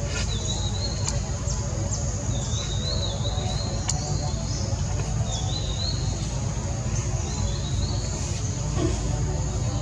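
Outdoor ambience: a bird's short chirping call repeated every second or two over a steady high background hum and a low rumble.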